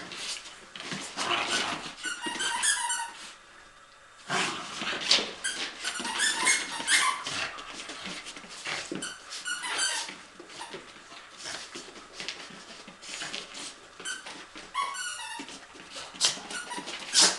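Border terriers playing, with scuffling and knocks, and a dog making repeated high-pitched squeaky whines in short runs.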